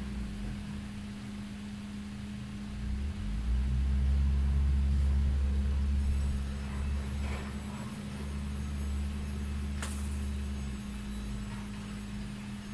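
Wind rumbling on the microphone over a steady low hum. The rumble swells for a few seconds in the first half, and there is one sharp click near the end.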